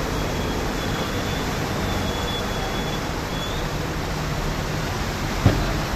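Steady rush of muddy floodwater flowing across a street, with cars ploughing through it. A faint thin high tone sounds over the first few seconds, and a single short knock comes near the end.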